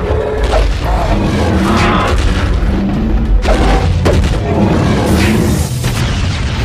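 Cartoon fight sound effects: several heavy booms and impacts over a deep rumble, with background music.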